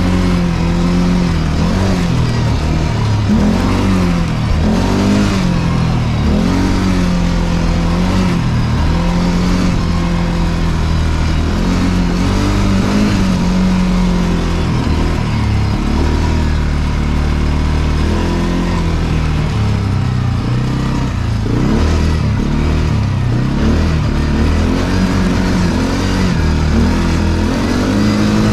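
CFMoto CForce 450L ATV engine running under way, its revs rising and falling again and again as it is throttled.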